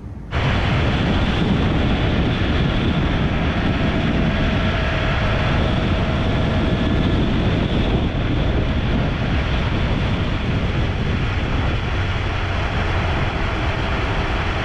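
1969 Oldsmobile 442's 400-cubic-inch V8 running at a steady cruise, its exhaust mixed with tyre and road noise, heard from low beside the rear wheel. It starts abruptly just after the beginning and holds steady.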